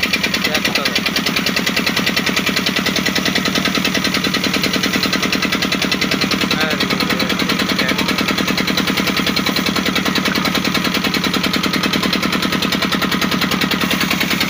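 The engine of a wood-cutting machine running steadily, with a rapid, even knocking beat that does not change.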